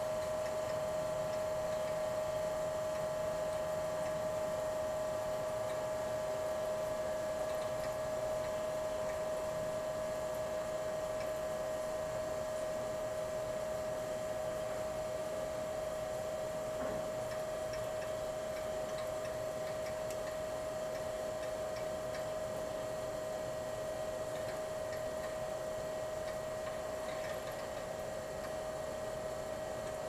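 GE Monitor Top refrigerator's hermetic compressor running steadily with a constant humming tone, working under a fresh refrigerant charge as the evaporator gets cold.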